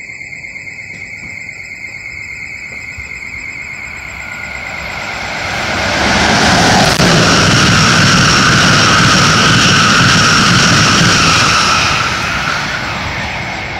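Amtrak Northeast Regional express train, hauled by a Siemens ACS-64 electric locomotive, passing through a station at speed without stopping. The rush of wheels on rail builds over a few seconds, stays loud for about six seconds as the train goes by, then begins to fade as it pulls away.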